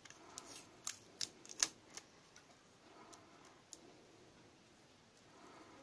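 Small sharp clicks and taps from fingers, fingernails and clear sticky tape working against a metal key blade in a flip-key fob: five or so in the first two seconds, then two fainter ones.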